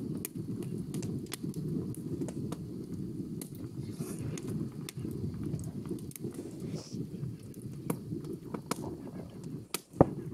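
Open fire crackling, scattered pops and snaps over a steady low rumble, with one loud sharp snap near the end.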